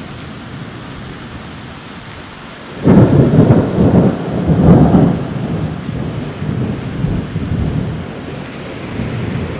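Steady rain, then about three seconds in a sudden loud clap of thunder that rumbles on and slowly fades over several seconds.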